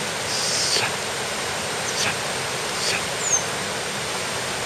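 Rushing water of a shallow, fast mountain stream running over rocks, steady throughout. A few brief high chirps sound over it, one a short falling whistle about three seconds in.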